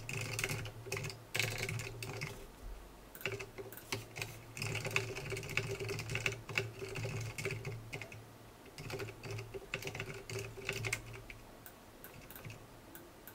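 Typing on a computer keyboard: quick runs of keystrokes broken by short pauses, growing sparser near the end.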